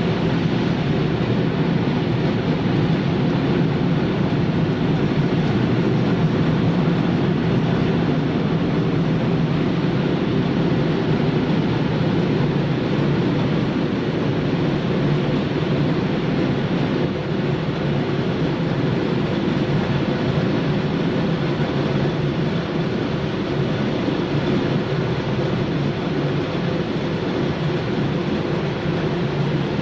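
Breakfast cereal extrusion production line running: a steady, loud mechanical hum and rumble of machinery.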